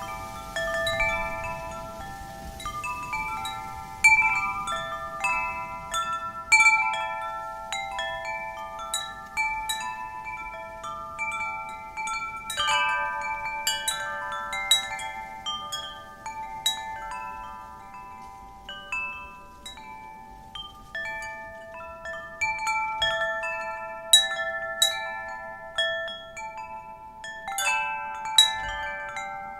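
Wind chimes ringing in the wind: irregular strikes, several notes sounding and overlapping as they fade slowly, with louder clusters now and then.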